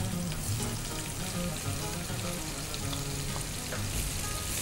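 Onions sizzling as they are added a little at a time to hot ghee in a frying pan over a low flame, the sizzle growing louder near the end.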